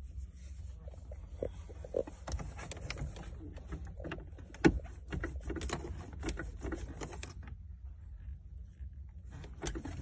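Plastic clicks, knocks and rattles of a hand working wiring plugs loose from a car's body control module under the dashboard, with one sharp click about halfway through. The clicking pauses for about two seconds near the end, then starts again.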